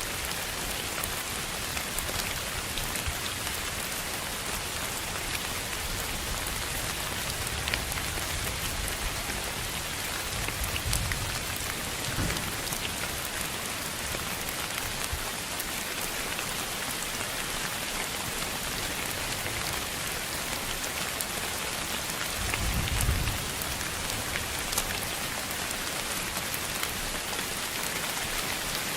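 Steady rain, an even hiss with scattered sharp drop ticks and a few brief low rumbles, the strongest about 23 seconds in.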